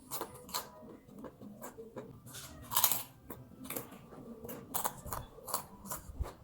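A person chewing and biting crunchy food close to the microphone: a run of irregular sharp crunches, the loudest about three seconds in.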